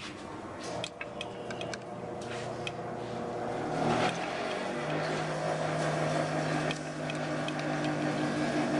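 A steady machine hum that steps up in pitch and grows louder about four seconds in, with light clicks of a screwdriver working the small screws of a Yamaha XS650 alternator brush holder in the first few seconds.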